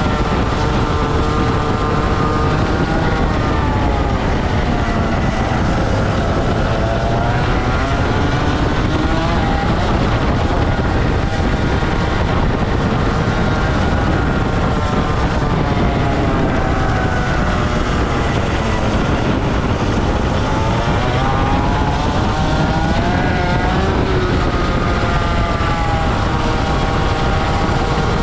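Rotax Max 125cc two-stroke kart engine running at racing speed. Its pitch repeatedly climbs as it revs up and falls away as it comes off the throttle.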